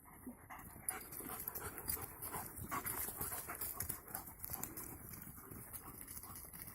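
A dog panting, with irregular rustling and steps.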